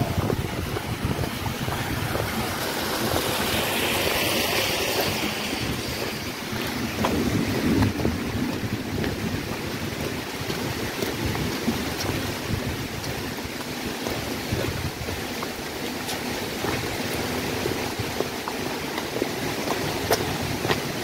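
Wind buffeting the microphone over a steady rushing outdoor noise, with a few swells.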